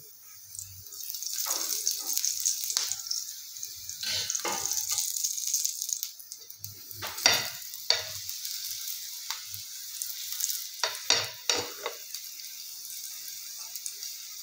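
Palak paratha sizzling as it fries in a hot pan, with a metal spoon scraping and several sharp metal clinks against the pan, the loudest a little past the middle.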